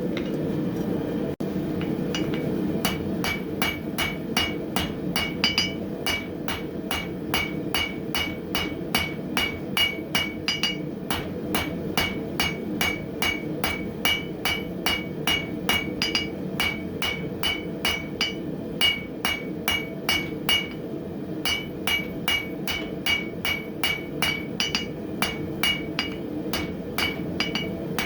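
Blacksmith's hammer striking hot coil-spring steel on an anvil, drawing the bar out: a steady run of about two blows a second, each with a bright metallic ring, beginning about three seconds in and pausing briefly near the end. A forge runs steadily underneath.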